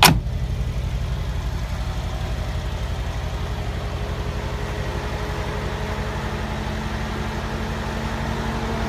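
A car door shuts with a single sharp knock right at the start, then the 2016 Mercedes-Benz G550's 4.0-litre twin-turbo V8 idles steadily.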